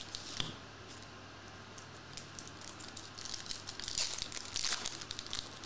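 Foil trading-card pack being torn open and crinkled by hand, the crackling loudest from about four seconds in.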